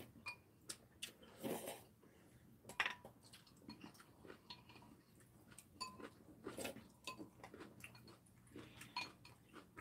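Eating ramyeon with metal chopsticks from ceramic bowls: light, scattered clicks of chopsticks against the bowls, with a sharper clink about three seconds in, and quiet chewing and slurping of noodles.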